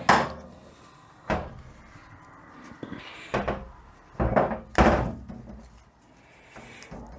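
Tools and transmission parts being handled on a workbench: a string of five or so separate clunks and knocks, the two loudest close together a little past halfway.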